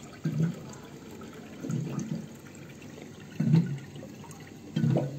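Bottled-water dispenser drawing water. The big bottle gives four low glugs about a second and a half apart.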